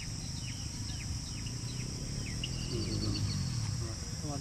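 Outdoor ambience: birds chirping with quick, short falling calls over a steady high insect drone, with a low rumble underneath.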